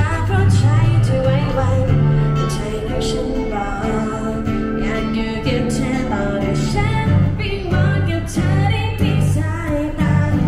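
Background music: a song with a female singing voice over a steady bass and plucked guitar.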